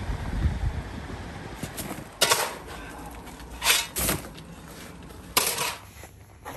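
Wind and sea surf noise for about two seconds. Then a steel shovel scrapes into sand and throws it into a wheelbarrow: four short, harsh scrapes over about three seconds.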